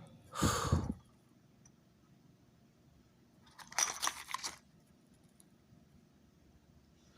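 Plastic lure packaging crinkling and crunching as it is handled, in two short bouts: one about half a second in and a crackly one around four seconds in.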